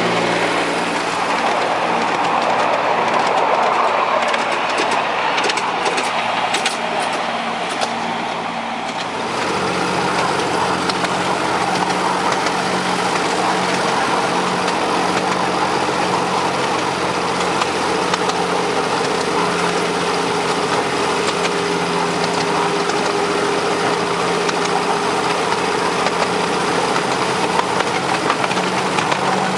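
Engine of a 7¼-inch gauge miniature GP40 locomotive running steadily as it hauls the train, heard from the carriage just behind it. The sound changes suddenly about nine seconds in, becoming a steady hum.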